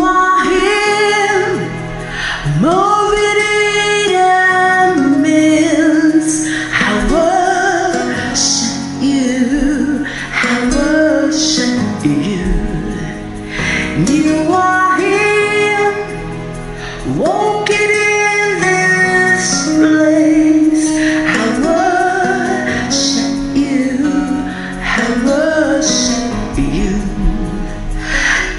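A woman singing a slow worship song with musical accompaniment, holding long notes with vibrato.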